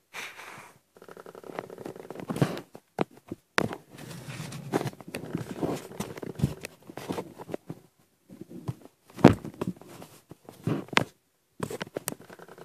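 Irregular rustling and knocking with scattered sharp clicks: handling noise from a handheld phone being moved about while it films.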